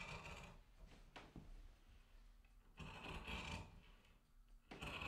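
Large shears cutting through a sheet laid on a table: faint rasping strokes of the blades, three of them about two seconds apart.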